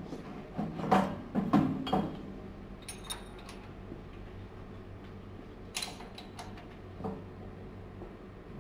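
Metal clanks and clicks of a noodle machine's cutter blade being handled and fitted: a cluster of knocks about one to two seconds in, a light ringing rattle around three seconds, then single knocks near six and seven seconds, over a low steady hum.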